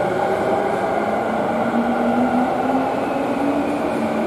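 Electric commuter train running through an underground station platform, with steady rumble and hiss from wheels and rails. Its traction motors whine, and the whine rises in pitch as the train speeds up.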